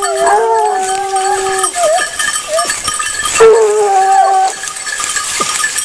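Gascon hounds baying on a scent: two long drawn-out bays, the first lasting nearly two seconds and the second starting about three and a half seconds in, over a steady ringing of bells.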